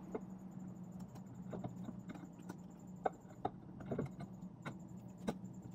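Light, scattered clicks and taps of metal parts as the aluminium front casing of a J-type overdrive is worked down over the rear casing, its rods being lined up with their holes. A steady low hum underneath.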